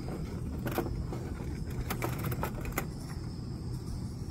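Light metallic clicks and taps as a folding aluminium windscreen is shifted around a lit butane canister camp stove, a cluster of them in the first three seconds, over a steady low rumble.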